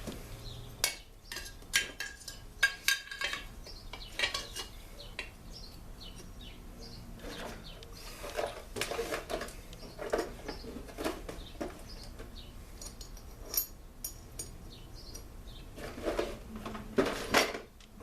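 Small metal engine parts and hand tools clinking and knocking irregularly during bench reassembly of a small two-stroke engine, with clusters of clatter at the start, in the middle and near the end.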